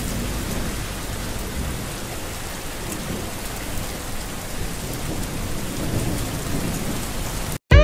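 Steady hiss of heavy rain with a low rumble underneath, cutting off suddenly near the end.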